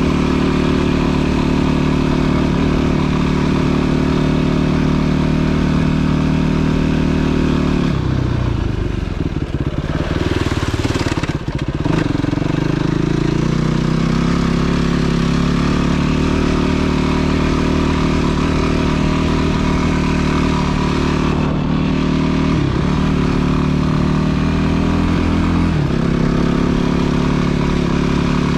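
Off-road motorcycle engine running steadily as the bike rides along. The revs fall off about eight seconds in and come back up a few seconds later, and the pitch steps twice near the end.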